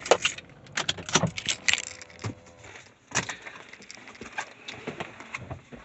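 A string of irregular clicks and small metallic rattles, like keys jangling and things being handled, inside a parked car's cabin.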